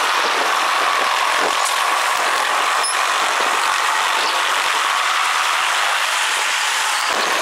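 Freight train of coal gondolas and tank cars rolling past: a steady, thin rattling hiss of wheels on rail with a faint held ringing tone and no low rumble.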